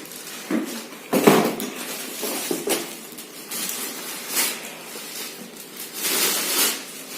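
Handling noise: irregular rustles and light knocks as leather riding boots are picked up and turned over, with a louder knock about a second in.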